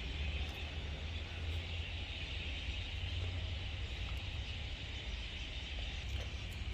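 Air compressor running steadily, a low hum with a constant hiss, as it pumps air into a car's AC system to pressure-test it for leaks.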